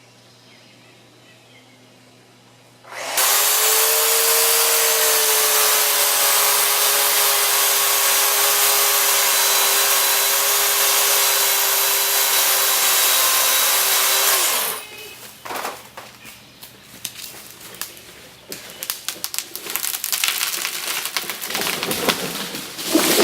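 Electric chainsaw making the back cut through a dead tree trunk: it starts about three seconds in, runs steadily under load for about eleven seconds, then stops. Irregular cracks and snaps follow, growing louder near the end as the hinge wood gives way and the tree begins to fall.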